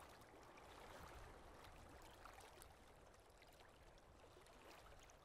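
Faint water ambience: a soft trickling wash with scattered small ticks.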